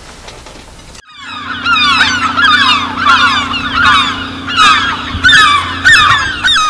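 A large flock of birds calling over one another, starting suddenly about a second in, with a steady low hum beneath.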